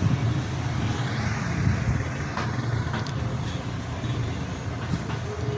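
Steady low background rumble with a few light clicks.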